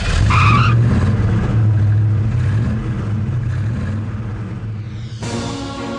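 Car sound effect: a short tyre screech at the start over the engine's low drone, which fades away as the car drives off. Music comes in near the end.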